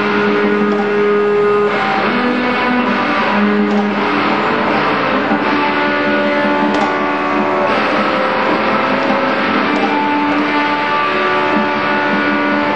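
Live band music with guitar, a dense mix of held notes played without a break.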